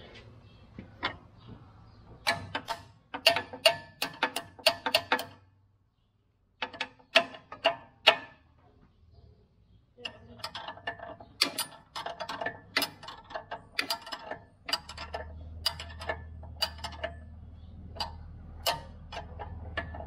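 Massey Ferguson 1840 inline baler's mechanism being rolled over slowly by hand, ratcheting and clicking in quick spurts with two short pauses. A low steady hum joins about three-quarters of the way in.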